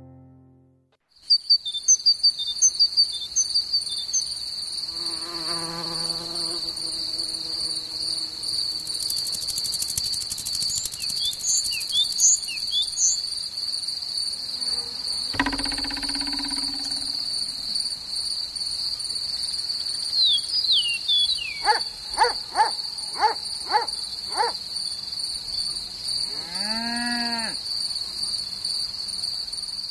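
Meadow insect soundscape: a steady high-pitched cricket chirring that starts about a second in, with short insect chirps and buzzes over it, a run of five quick chirps about two-thirds through and a rising-then-falling call near the end.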